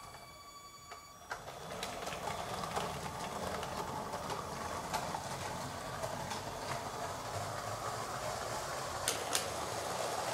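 Battery-powered Lego trains running on plastic track: a rattling whir of motors, gears and wheels, with scattered sharp clicks as the wheels pass rail joints. A faint steady whine gives way to the louder rattle about a second in, and two sharp clicks come close together near the end.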